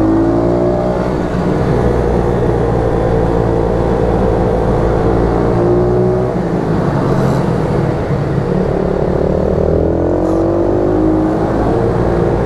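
YCF 88 cc pit bike's single-cylinder four-stroke engine, heard from onboard, revving up and easing off through the corners of a lap. Its pitch climbs in the first second, holds steady, drops away about six seconds in, then climbs again about nine seconds in.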